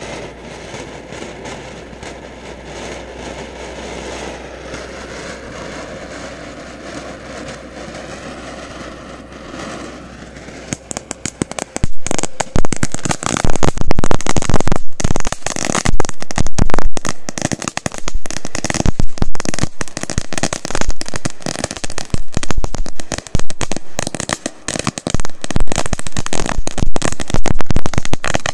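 Ground firework fountain spraying sparks with a steady hiss, then about eleven seconds in it breaks into loud, dense crackling.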